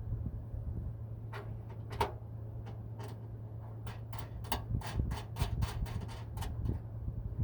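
Light clicks and taps of bolts and nuts being fitted by hand to a train horn's mounting bracket. A few scattered clicks at first, then a quicker run of about five a second past the middle, over a steady low hum.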